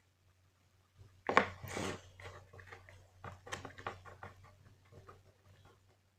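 Slime-making supplies handled on a table: a sharp knock about a second in, a short rush just after, then a run of small light clicks and taps that dies away.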